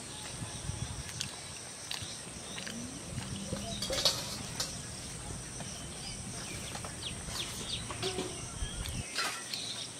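Outdoor rural ambience with scattered short bird chirps over a steady faint high-pitched whine and a low rumble.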